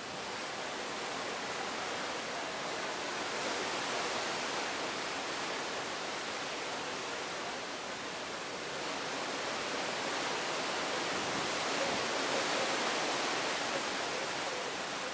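Steady rush of sea water streaming along a moving cruise ship's hull, mixed with wind at the rail. It swells and eases twice.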